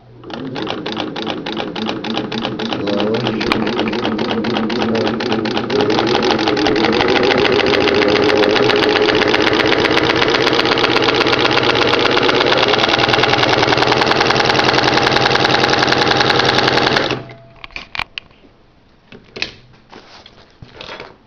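Singer 15-91 sewing machine with its belt-free, directly attached motor, running unthreaded: a fast, even clatter over the motor's hum, building up in speed and loudness over the first several seconds, then steady until it stops suddenly. A few light clicks follow.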